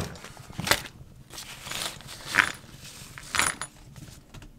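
A handful of rusty iron horseshoe nails clinking as they come out of a bag onto a wooden board: several separate sharp clinks and knocks, the loudest about two and a half seconds in.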